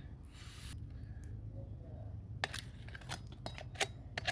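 A run of sharp clicks and knocks, the loudest near the end, as a covered cooking pot and its lid are handled to open it.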